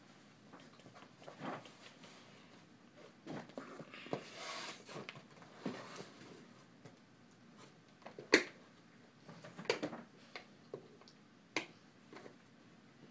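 Scissors snipping and scraping through packing tape on a cardboard doll box, with scattered clicks and rustles of the cardboard. One sharp snap about eight seconds in is the loudest sound.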